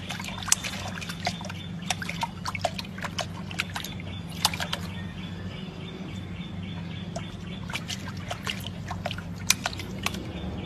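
A puppy pawing at the water in a garden water pot: small, irregular splashes and drips, several a second, over a steady low hum.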